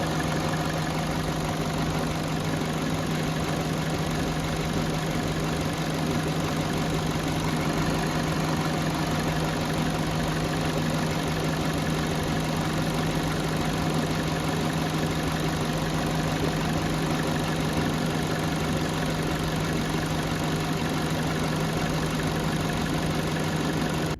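Peugeot 207's petrol engine idling steadily and quietly, with the electric radiator cooling fan running at speed. It is a normal, even idle at operating temperature, with no misfire.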